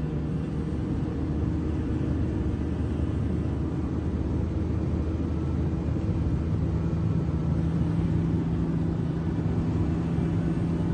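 Steady low engine drone and road rumble heard from inside a moving car driving alongside a column of heavy tank-transporter trucks.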